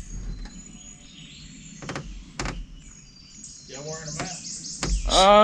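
Birds chirping faintly over quiet open-air background, with two sharp knocks about two seconds in. Near the end comes a man's drawn-out voice, the loudest sound.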